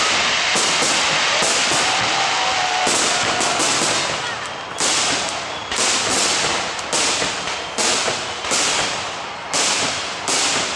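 Aerial firework shells bursting: a dense, continuous crackle for the first few seconds, then a run of sharp bangs about one a second.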